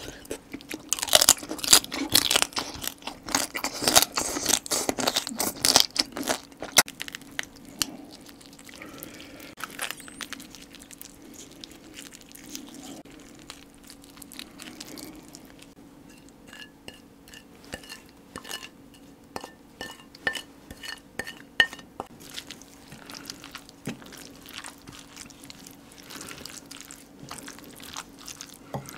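Close-miked crunching and chewing of spicy marinated stone crab, loudest and densest for the first six or so seconds. After that come sparser, quieter wet clicks as the crab is pulled apart and mixed into rice with a wooden spoon.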